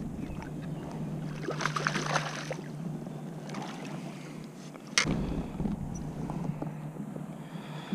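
Water splashing as a hooked largemouth bass is scooped into a landing net beside a kayak, then a single sharp knock about five seconds in as the net is handled aboard, over a steady low hum.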